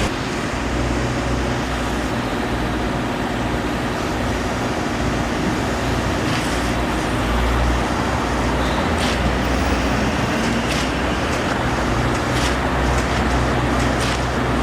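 An engine running steadily with a low hum, and short sharp clicks or taps coming every second or two in the second half.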